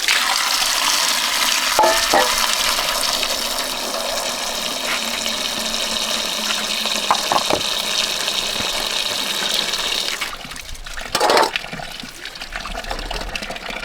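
Water running or pouring steadily for about ten seconds, then stopping suddenly, followed by one short splash.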